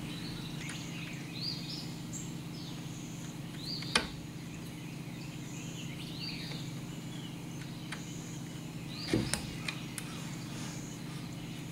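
Light clicks and knocks of a bolt and nut being worked together by hand in a wooden workbench frame: one sharp click about four seconds in and a few knocks about nine seconds in, over a steady low hum. Short high chirps repeat every second or so.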